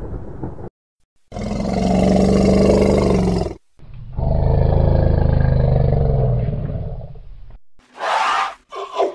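Elephant calling: two long, low calls of two to three seconds each, the second sinking in pitch as it fades out.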